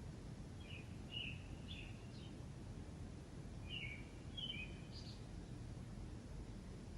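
A bird singing short phrases of a few quick chirps, one phrase about a second in and another about four seconds in, over a faint steady low background hum.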